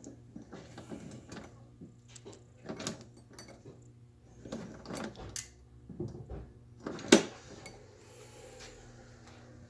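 A string of irregular light knocks, rattles and clicks of something being handled, the loudest a sharp click about seven seconds in, over a faint low steady hum.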